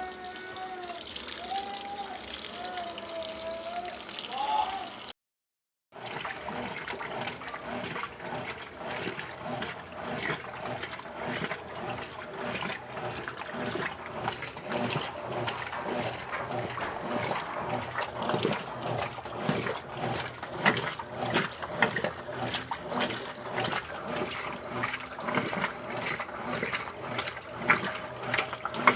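Consul Maré Super top-loading washing machine with water running into the tub, then, after a short break, water sloshing in a regular rhythm as the machine churns the load.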